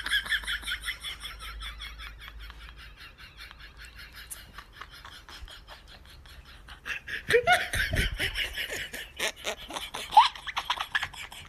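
People laughing helplessly in quick, breathy bursts that die down through the middle and swell again about seven seconds in.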